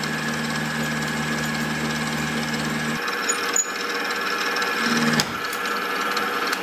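Milling machine endmill cutting aluminium: a steady high cutting whine over the machine's running noise. A low hum drops out about three seconds in, and there is a sharp crack about five seconds in.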